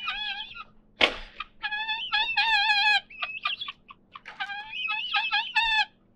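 Helmeted guineafowl calling: a harsh burst about a second in, then runs of repeated high, wavering calls.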